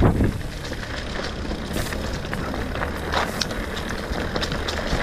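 Mountain bike rolling along a dirt trail strewn with dry leaves: the tyres crackle and crunch over leaves and grit above a steady low rumble, with a louder knock right at the start.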